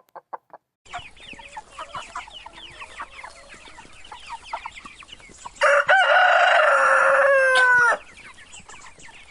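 Chickens clucking: a quick run of short clucks, then a flock's busy clucking. About five and a half seconds in, a rooster crows loudly for about two seconds, trailing off in a falling note.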